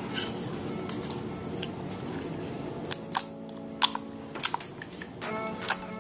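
Clear glue slime being pressed, folded and squeezed by hand, giving a series of sharp clicks and pops. They are most frequent from about three seconds in.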